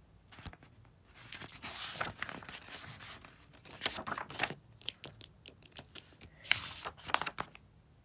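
Paper pages of a hardcover picture storybook being turned and handled: several rustling swishes with small taps, the loudest near the end.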